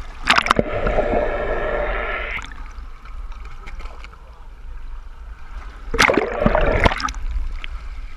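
Sea water rushing, gurgling and splashing over a camera held at the surface as it dips in and out of the waves, with sharp splashes. It is loudest for the first two seconds and again around six seconds in, and quieter in between.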